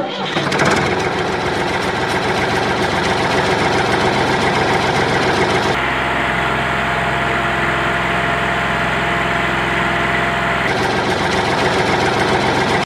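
Diesel tractor engine sound effect: an engine running steadily, its tone changing about six seconds in and changing back about eleven seconds in.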